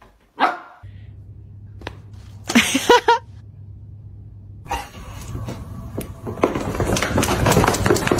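A dog barking, with a short pitched call about three seconds in and a louder, noisier stretch with clicks and knocks in the second half.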